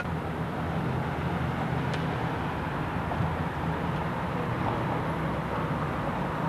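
Steady low rumble with a hiss over it: city background noise.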